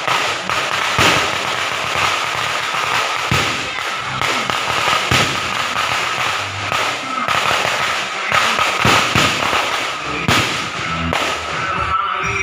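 A long string of firecrackers going off in a dense, continuous crackle, with louder single bangs scattered through it.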